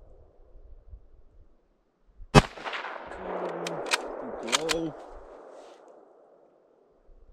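A single shot from an M/39 Mosin-Nagant bolt-action rifle, with a long echo rolling away for about three seconds. Over the echo come four sharp clicks as the bolt is worked to chamber the next round.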